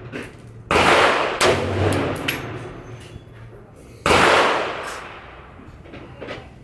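Two rifle shots about three and a half seconds apart, each a sharp crack followed by a long fading echo, with a few fainter cracks between them, as a rifle is sighted in at a range.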